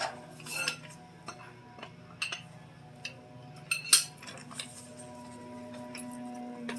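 Scattered metallic clinks and clanks of tools and a car jack being handled, the loudest about four seconds in, over a faint steady hum.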